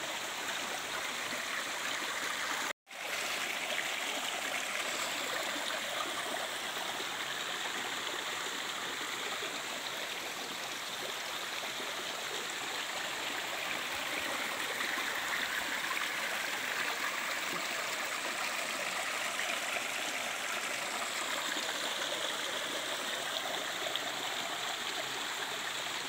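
Shallow mountain creek running and trickling over rocks, a steady rush of water. The sound cuts out for a moment about three seconds in.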